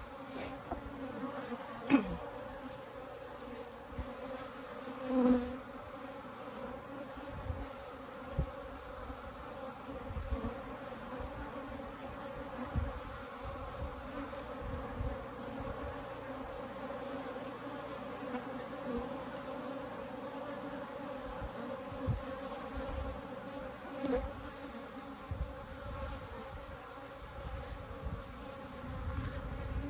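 Africanized hybrid honeybees buzzing steadily around their opened colony, a constant mass hum with a few short knocks scattered through it.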